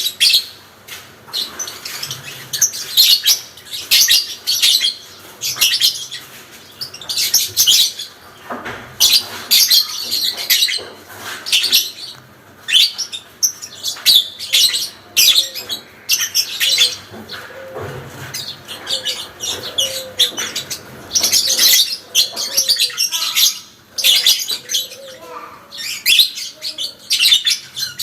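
Parblue lovebird giving its long 'ngekek' chattering song: rapid, high-pitched chattering trills in bursts of a second or two, repeated again and again with short pauses between.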